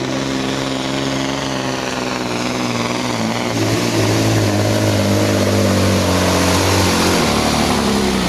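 Volvo FH16 pulling truck's diesel engine running flat out under heavy load as it drags the weight sled. It gets louder about four seconds in and shifts pitch a couple of times.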